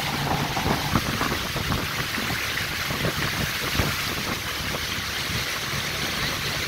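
Speedboat underway: a steady engine hum under the rush of water along the hull and wind on the microphone, with frequent short thumps.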